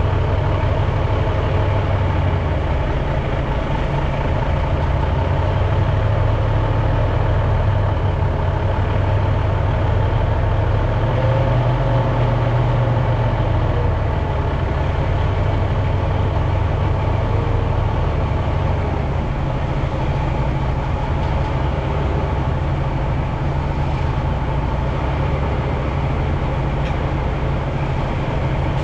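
International tanker truck's engine running steadily as the truck reverses slowly, with small rises and falls in its note.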